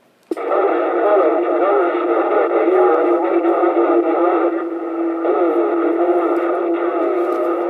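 CB radio receiving distant stations on skip through its speaker: several far-off voices talk over one another in static on a crowded channel, with a steady tone running under them. It cuts in abruptly about a third of a second in, as the transmitter is unkeyed. The crowding of the channel matches conditions that are described as a jumbled-up mess.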